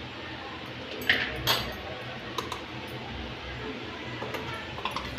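Steel spoon clinking and scraping against a steel mixer-grinder jar as ground paste is emptied into a steel pot: a few scattered clinks and taps, the loudest about a second in.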